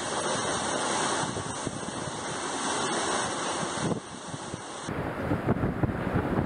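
Storm wind and driving rain, a steady roaring hiss. About five seconds in it gives way to gusty, rumbling hurricane wind buffeting the microphone.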